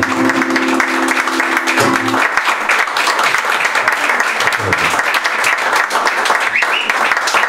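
Audience applauding steadily in a small room. For the first two seconds a chord on the acoustic guitar rings out under the clapping, then stops.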